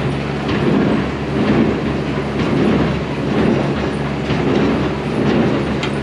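Large square baler running on a test run of freshly serviced knotters, a steady mechanical drone with a rhythmic clatter about once a second.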